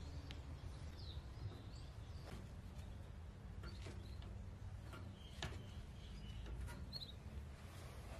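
Faint outdoor ambience with a low steady rumble and a few short bird chirps, and a few light clicks as a plastic hose-barb fitting is handled and fitted to the metal hopper outlet.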